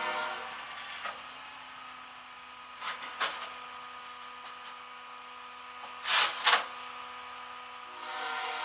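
A steady mechanical whine, with short hissing bursts about three seconds in and a louder double hiss about six seconds in.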